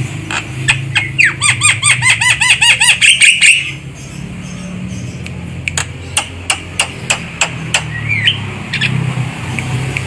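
Javan myna (jalak kebo) calling: a fast run of repeated chirping notes over the first few seconds, then a series of sharp clicks about three a second with a short squeaky rising note. A low steady hum runs underneath.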